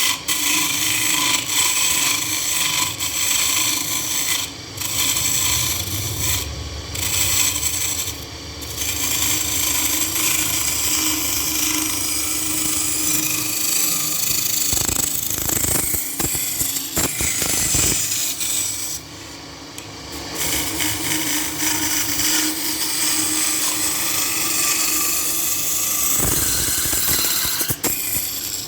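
A turning tool cutting and scraping a workpiece spinning on a lathe, a steady harsh scraping that briefly lets up a few times as the tool is lifted off.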